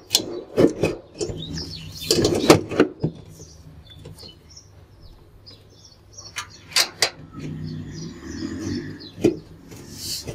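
Hands working at the door opening and drum of a Whirlpool front-loading washing machine: scattered knocks, clicks and rubbing, in clusters near the start, about two seconds in, and around seven and nine seconds. Faint bird chirps can be heard in the quieter middle stretch.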